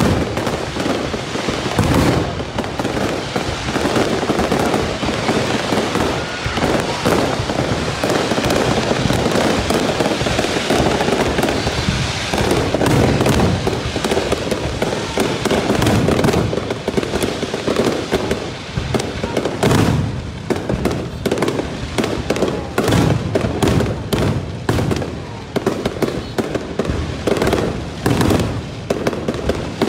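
Aerial fireworks display in full barrage: shells bursting in a near-continuous stream of bangs and crackles, many a second.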